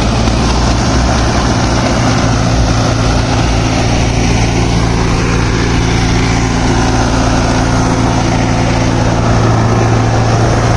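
Sonalika DI 750 tractor's diesel engine running hard at a steady speed, straining under load as it tows a mud-stuck tractor on a rope. A second tractor engine, also pulling, runs underneath it.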